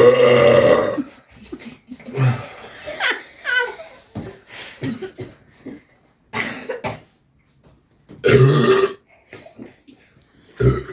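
Loud, drawn-out human burps from chugging a 2-litre bottle of fizzy soda: one lasting about a second right at the start and another about eight seconds in, with smaller gulping and throat sounds between.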